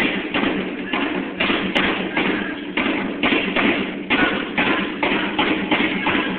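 Live drums playing a steady, driving rhythm of about three strikes a second, in a poor-quality recording.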